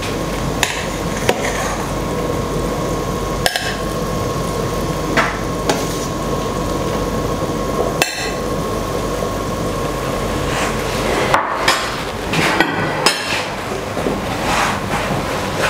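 Metal spoon knocking and clinking against a steel stock pot and plates as boiled khinkali dumplings are lifted out, about a dozen sharp knocks, more frequent near the end, over a steady hiss.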